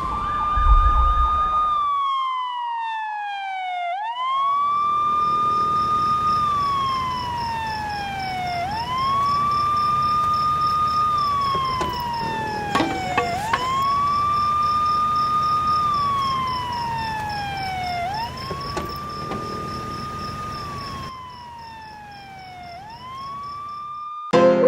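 A siren wailing in slow cycles, about five in all: each rises quickly to a high note, holds it, then slides down over about two seconds before rising again. A low steady rumble lies underneath and drops away about four seconds before the end.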